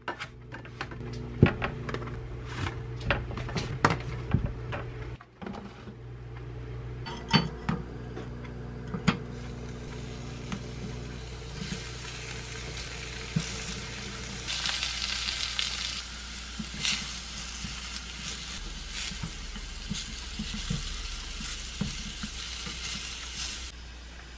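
Boiled sweet potato slices frying in olive oil in a small pan, with a steady sizzle through the second half that is loudest for a couple of seconds and then stops near the end. Before the frying, a string of sharp clicks and light clatter from handling a plastic punnet of grapes by a steel strainer.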